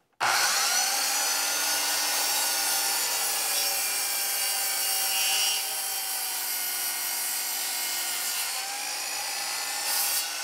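DeWalt sliding compound mitre saw starting abruptly and running at full speed as its blade makes a compound mitre cut through a white oak keel timber. The motor's whine eases slightly about halfway through, and the pitch begins to fall as the blade spins down near the end.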